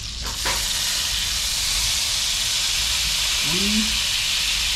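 Trout fillets frying in olive oil and butter in a hot cast-iron skillet; about half a second in, the sizzle flares to a loud, steady hiss as lemon juice is squeezed onto the fish and the hot pan.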